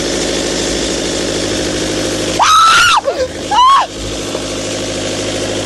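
Kipor diesel standby generator running steadily. About two and a half seconds in a woman gives a loud, high-pitched scream lasting about half a second, then a second, shorter shriek, startled by what she took for a croaking lizard.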